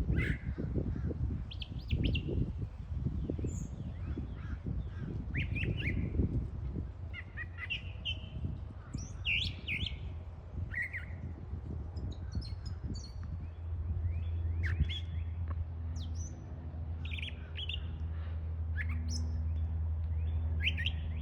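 Birds chirping, with many short calls scattered throughout. From about two-thirds of the way in, a steady low hum joins underneath.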